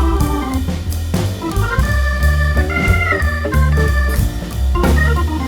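Background music led by an organ-like keyboard over a steady bass and beat.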